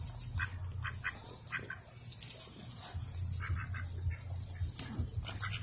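Ducks giving short, soft quacks off and on, a little longer about three and a half seconds in, over a low steady rumble.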